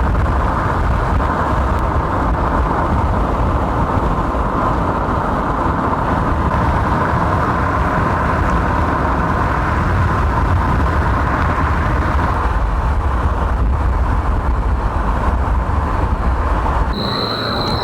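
Steady road and engine noise of a car being driven, with a strong low rumble. Near the end the sound changes abruptly: the rumble drops away and a steady high-pitched tone begins.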